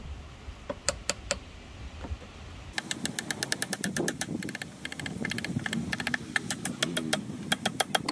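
Small hammer tapping a wooden wedge into the eye of an axe head to lock the handle in. A few scattered taps come first, then from about three seconds in a fast, even run of light taps, several a second.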